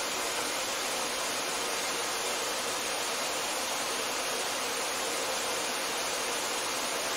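Canister vacuum cleaner running steadily as a constant airy noise, its hose drawing suction through a linear book scanner, which uses the airflow to turn the book's pages.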